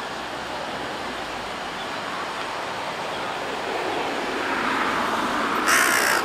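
Steady wash of wind and small waves that slowly grows louder, then a short, loud, harsh burst near the end.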